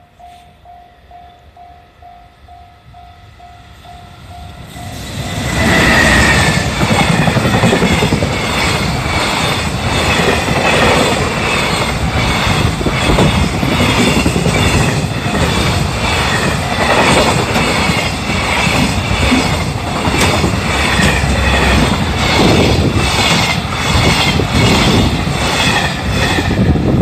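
A level-crossing warning bell rings in steady, rapid pulses. About five seconds in, a long freight train hauled by an EF210 electric locomotive arrives and passes close by: a loud rumble with a rhythmic clatter of wagon wheels over the rail joints, continuing without a break.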